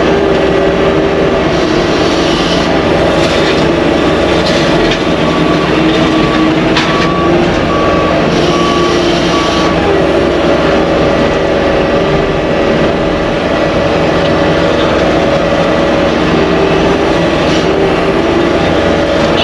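Skid steer running hard with its Blue Diamond brush cutter spinning as it clears brush. For a few seconds partway through, its backup alarm beeps steadily as it reverses.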